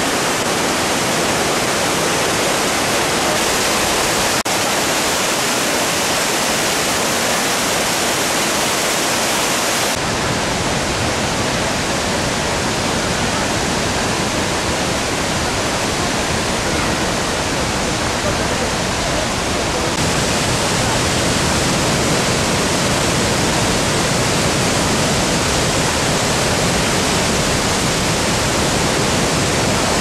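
Steady loud rushing of a large waterfall, water pouring down many tiers. The rush is fuller and deeper in the bass for a stretch in the middle.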